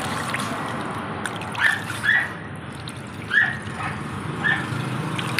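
Water trickling and splashing from cupped hands back into a tyre-testing water tub. Over it come five short, high calls from an animal, about one a second.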